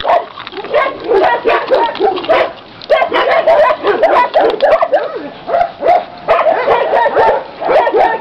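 Several dogs barking and yelping at once in a continuous, overlapping chorus.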